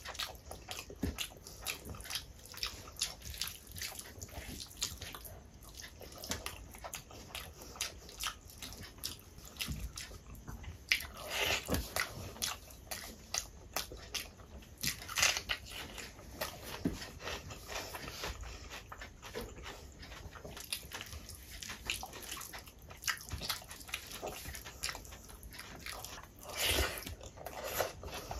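Close-miked chewing and mouth smacking of someone eating rice and curry, with the squish of fingers mixing rice on a plate: many small clicks and a few louder smacks.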